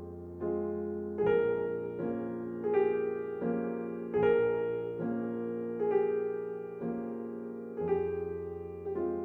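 Slow piano music: single notes and chords struck about once a second, each left to ring and fade before the next.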